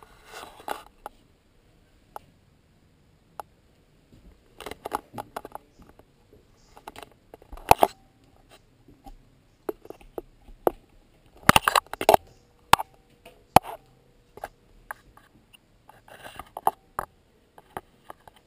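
Irregular clicks, taps and short rattles of a blowgun and its plastic darts being handled, with the loudest knocks about eight seconds in and around twelve seconds in.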